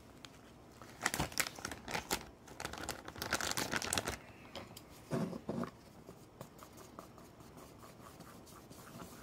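Crinkling and rustling of a packet of tempura flour being handled for a few seconds, then a short rustle and faint clicks of chopsticks against the bowl as the batter starts to be stirred.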